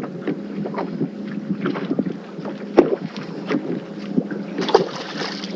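Handling noise aboard a small fishing boat: irregular knocks and clicks over a steady low hum, with wind on the microphone and a brief louder hiss near the end.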